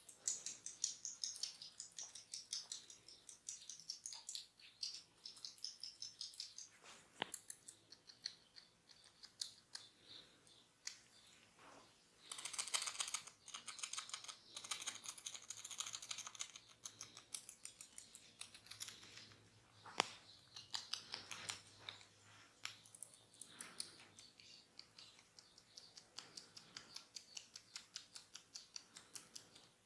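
Fingers rubbing and scratching on oiled skin and hair close to the microphone during a head and ear massage: a faint, busy crackle of soft clicks and rustles, denser for a few seconds around the middle, with a couple of sharper clicks.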